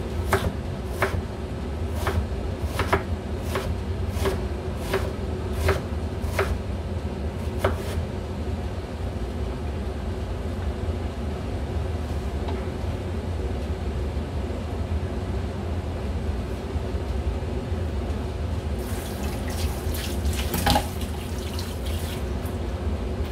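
Kitchen knife cutting radish on a wooden cutting board, about ten sharp, evenly spaced chops over the first eight seconds. Near the end a kitchen tap runs into a stainless-steel sink, with a knock in the basin, over a steady low hum.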